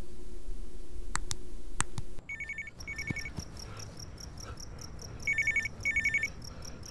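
A telephone ringing with an electronic trill, in two double rings about three seconds apart, over crickets chirping steadily. Before it, a low steady hum with a few faint clicks.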